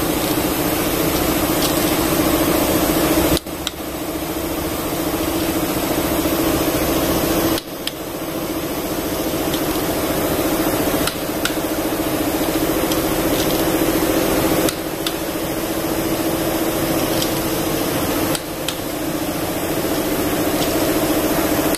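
Steady machine drone with a low hum, like a running engine or compressor, broken by abrupt cuts every few seconds.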